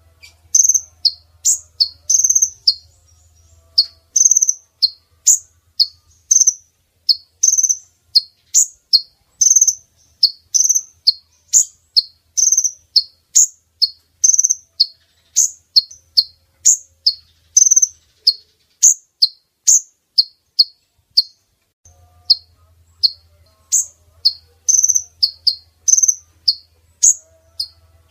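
Female kolibri ninja sunbird calling: short, sharp, high chirps repeated about two to three times a second, with a brief pause near the end. It is the female's call played as a lure to draw in males.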